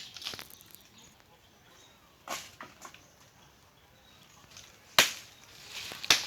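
Blade chopping into tree wood: sharp, separate strikes a few seconds apart. The loudest come at the start and about five seconds in, with a few lighter knocks between them.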